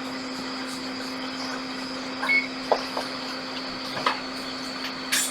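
Hot air rework station blowing steadily on a MacBook logic board to desolder the U8300 chip, a steady hiss with a low hum and a high whine. A few small clicks and taps in the middle.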